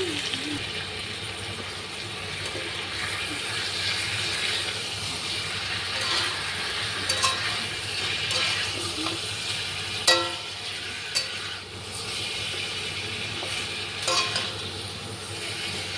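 Chicken curry sizzling and frying in a pan as it is stirred. A spoon knocks against the pan a handful of times, loudest about ten seconds in.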